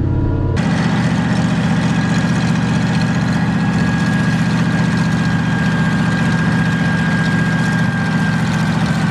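International Harvester 915 combine's 345 International V8 running steadily while the machine drives, with a thin high whine over the engine that slowly sinks in pitch. About half a second in, the sound changes abruptly from the cab to the machine heard from outside.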